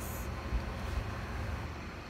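Steady low rumble and hiss of background room noise.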